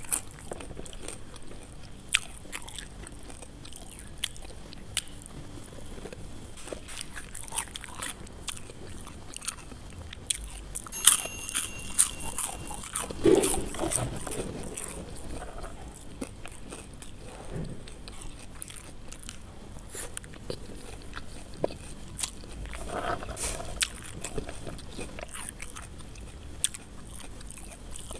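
Close-miked eating sounds: crispy fried potato sticks bitten, crunched and chewed. Sharp crunches come scattered throughout, with a louder run of them about eleven to fourteen seconds in.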